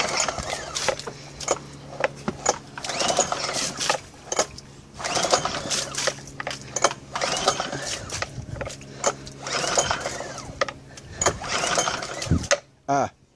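Recoil pull-starter of a 2013 Lehr 5 hp propane four-stroke outboard pulled again and again, about every one and a half to two seconds. Each pull is a whirr of the cord and the engine turning over without firing, because the ignition safety clip is not in place.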